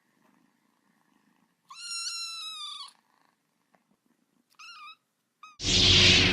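A cat meows: one long drawn-out meow about two seconds in, then two short chirping meows near five seconds, over a faint low purr. A loud burst of noise cuts in suddenly near the end.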